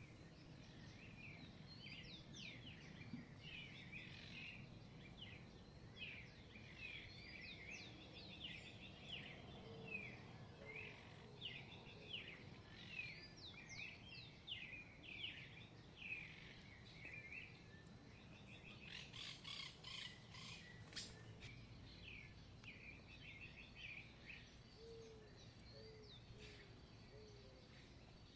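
Several wild songbirds singing, a dense run of short, quick chirping notes, with a rapid buzzy trill about two-thirds of the way through and a few soft low notes from another bird, over a faint steady background hum.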